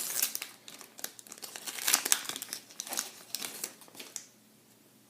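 Foil wrapper of a baseball card pack crinkling and tearing as it is opened by hand, stopping a little after four seconds in.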